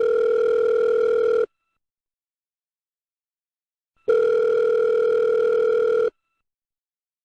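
Telephone ringback tone of a call to 911 ringing before it is answered: a steady tone already sounding that stops about a second and a half in, then a second two-second ring about four seconds in.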